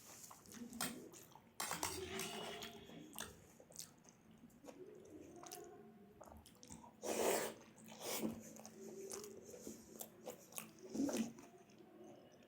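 A person chewing and biting food, with irregular wet mouth sounds and a few crunches; the loudest burst comes a little past the middle.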